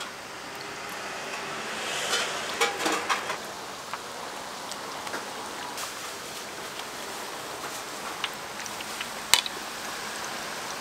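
Battered foods deep-frying in hot oil: a steady, rain-like sizzle, with a few sharp clicks about two to three seconds in and a single loud click near the end.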